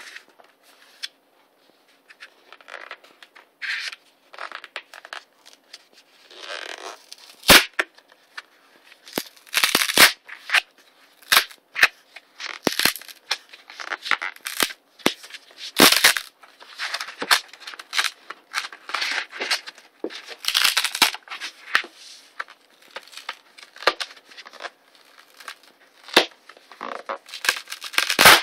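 Corrugated cardboard mailer being torn open along its tear strip: quiet handling at first, then from about seven seconds in a long series of loud, sharp rips and cracks as the strip is pulled through the cardboard.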